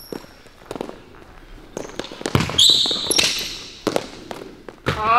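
A basketball bouncing on a court: a few separate, irregular bounces. A short high squeak comes a little past halfway, and a voice starts right at the end.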